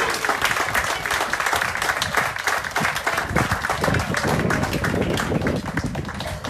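Audience applauding, a dense patter of many hands clapping that dies away toward the end.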